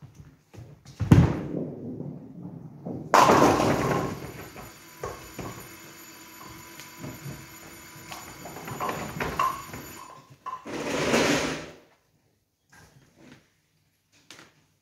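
Nine-pin bowling throw: the ball lands on the lane with a thud about a second in, rolls, and crashes into the pins about three seconds in, followed by the pins clattering and the automatic pinsetter working. A second loud stretch of machine noise about eleven seconds in as the pins are set back up.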